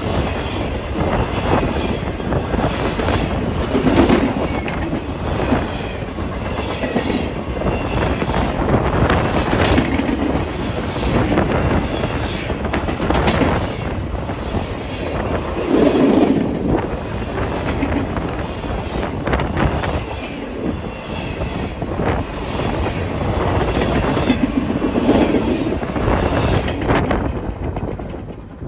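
Freight train of container flatcars rolling past at close range: a steady rumble of steel wheels with frequent clicks over the rail joints. The sound drops away suddenly near the end as the last car goes by.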